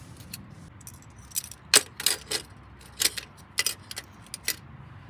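Small hard objects clinking and jingling together: about a dozen sharp, bright clinks spread over three seconds, the loudest just under two seconds in.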